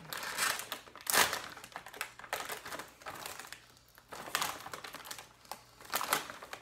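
A Paqui tortilla chip bag being pulled open by hand, its packaging crinkling in irregular bursts of rustling with short pauses between.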